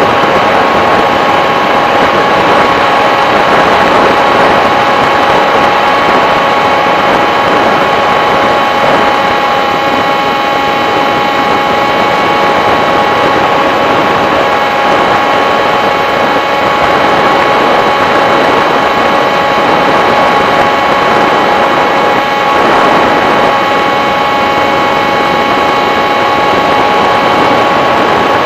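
Electric motor and propeller of a radio-controlled FPV model aircraft running steadily: a constant whine of several steady tones over a rushing noise.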